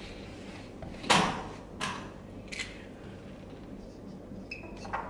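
Whiteboard eraser and marker on a whiteboard: three short scrapes, the first and loudest about a second in, then a brief high squeak of a marker writing near the end.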